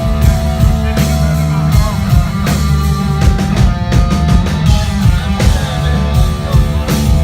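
Live rock band playing at full volume, with distorted electric guitars, heavy bass and a pounding drum kit, recorded from the audience.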